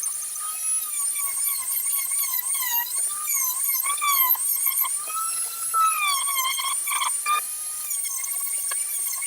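High-speed power tool with a sanding bit sanding down the end of a wooden hammer handle: a steady high whine whose pitch dips and rises again and again as the bit is pressed into the wood and eased off.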